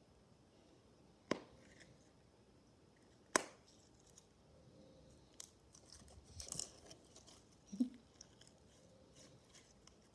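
Slime being handled: two sharp clicks a couple of seconds apart, then soft sticky crackling about six seconds in, over a quiet background.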